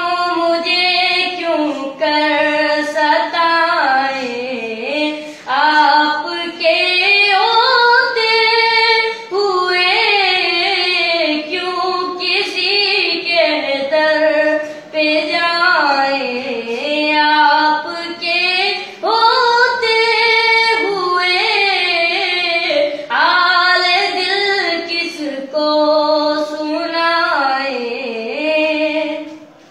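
A boy singing an Urdu naat (devotional poem in praise of the Prophet) solo and unaccompanied, in a high voice with gliding, held notes and short pauses for breath between phrases.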